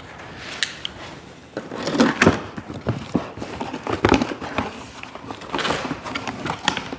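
Long cardboard shipping box being opened by hand: scraping and rustling of cardboard as the flaps are cut and pulled back, with irregular clicks and knocks.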